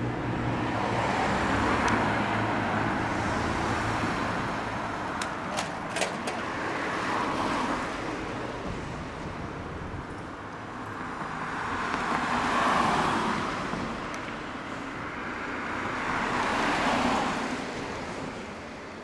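Street traffic, with vehicles passing one after another. Each swells and fades, loudest about two, twelve and seventeen seconds in. A low engine hum from the departing motorcycles dies away in the first couple of seconds, and a few sharp clicks come about six seconds in.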